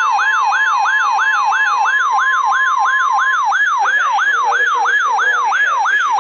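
Electronic siren tone wailing rapidly up and down, about three sweeps a second, laid over the Emergency Alert System two-tone attention signal. The steady two-tone stops about halfway through while the siren keeps going.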